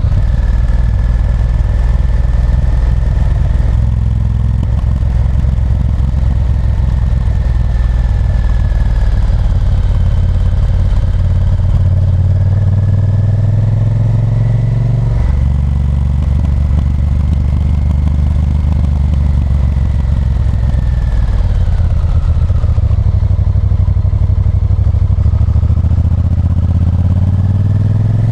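Honda Varadero 1000's 90-degree V-twin engine running under way, its pitch stepping up and down at a few points as the revs rise and gears change.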